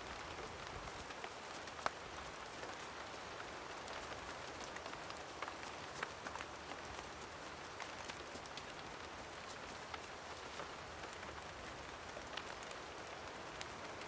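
Steady heavy rain falling, with a few sharper ticks scattered through it.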